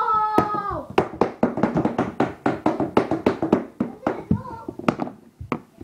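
Sharp, irregular clacks of plastic mini hockey sticks hitting the ball and the hardwood floor, several a second, with a voice calling out briefly at the start and voices underneath.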